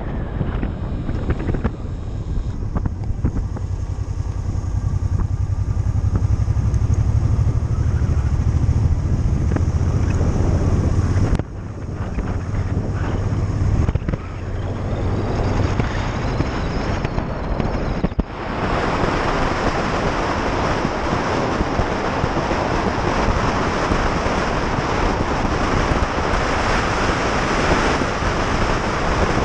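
Motorcycle under way: the engine's low drone is strongest in the first half, with sudden brief dips in level about eleven and eighteen seconds in. Wind rushing over the microphone grows louder in the second half and covers the engine.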